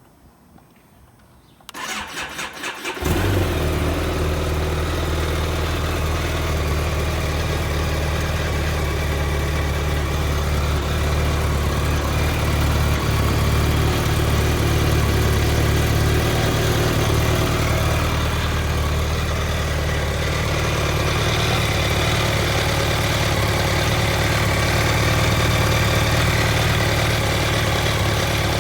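BMW K1200GT motorcycle's inline four-cylinder engine cranked on the starter for about a second, catching about three seconds in and then idling steadily. The owner hears a strange noise in it that he can't identify.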